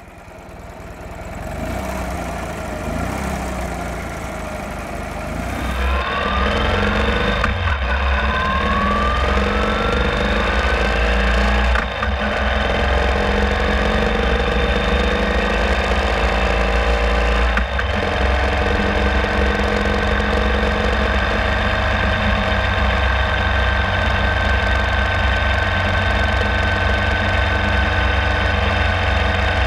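Ural Classic sidecar motorcycle's air-cooled boxer twin, heard while riding. It fades in, picks up about six seconds in and rises in pitch as it accelerates, with two brief dips, then settles into steady cruising.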